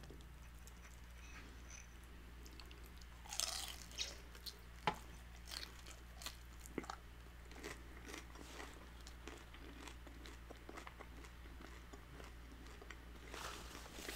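Biting into a crunchy fried birria taco about three seconds in, then chewing with crisp crunches that thin out to softer, quieter chewing. A paper napkin rustles near the end.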